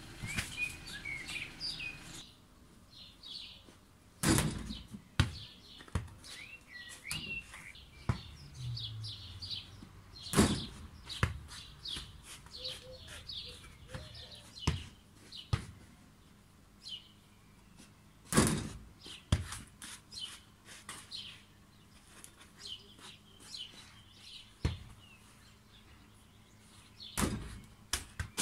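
Small birds chirping and twittering throughout, with several sharp, loud thuds of a football hitting the ground scattered through, the loudest about 4, 10, 18 and 27 seconds in.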